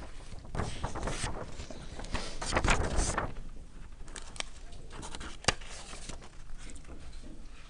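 Sheets of paper rustling and sliding as the page is moved aside for the next one, loudest about two to three seconds in, with a sharp click about five and a half seconds in.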